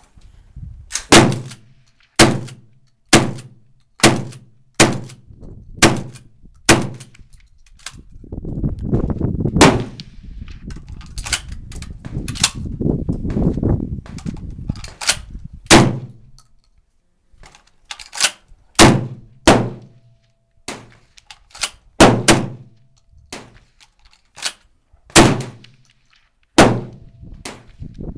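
Benelli Nova 12-gauge pump-action shotgun fired in quick succession, about once a second at first, each sharp report with a short ringing tail. About eight seconds in come several seconds of rough handling noise as shells are pushed into the magazine by hand. Then the shots go on, more spaced out.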